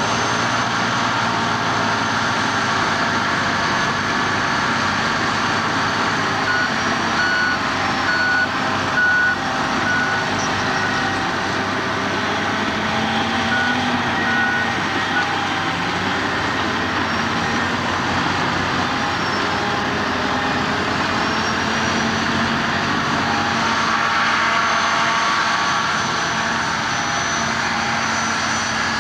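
AEC Mercury dump truck's diesel engine running as the loaded lorry moves slowly over rough ground, with a reversing alarm beeping in short regular pulses about six seconds in, and a lower-pitched reversing alarm beeping from about half-way on.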